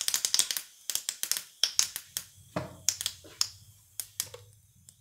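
Mustard seeds popping and crackling in hot ghee in a small steel tadka pan: sharp pops, many at first, then fewer and fewer as the pan cools with the gas turned off, dying away near the end.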